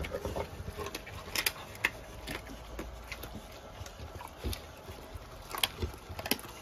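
A dog chewing and gnawing a piece of raw meat: irregular wet smacks and sharp clicks of its teeth.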